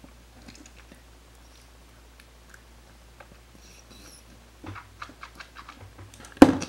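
Faint wet mouth and tongue sounds, small clicks and smacks, as a mouthful of liquid makeup primer is tasted, growing busier toward the end. Near the end comes a single loud, sudden burst.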